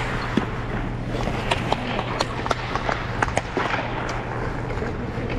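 Ice skates scraping on rink ice, with irregular sharp clicks several times a second, over a steady low hum.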